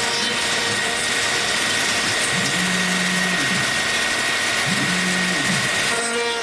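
CNC milling machine cutting aluminium: a steady whine and cutting noise from the running spindle. Twice a lower motor whine rises, holds and falls as the machine makes a move.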